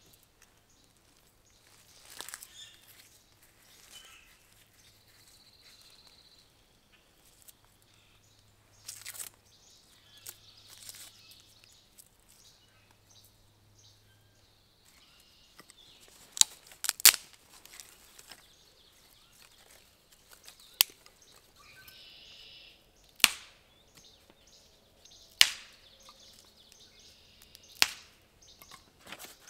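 Dry birch bark being peeled and torn from the trunk by hand, a few soft rustling tears. Then come sharp, loud snaps of dry sticks being broken, one every two to three seconds.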